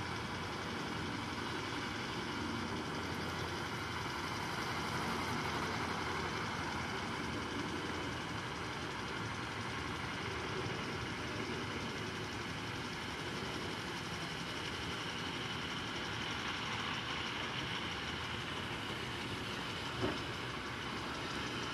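Automatic lawn sprinklers spraying water over grass and a parked car, a steady hiss, with one short sharp knock near the end.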